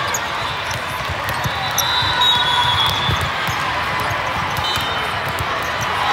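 Volleyball rally in a large hall: the ball knocking off hands and arms, and shoes squeaking on the sport court. Voices in the background.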